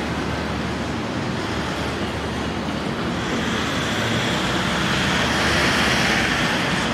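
Traffic noise, a steady wash of passing vehicles. A vehicle swells past from about three seconds in and is loudest near the end.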